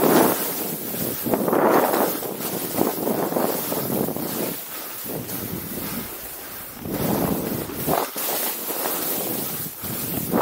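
Skis hissing through snow in surges every second or two as the skier carves turns, mixed with wind rushing over the microphone.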